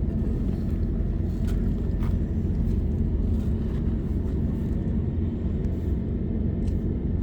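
A steady low rumble with a few faint ticks scattered through it.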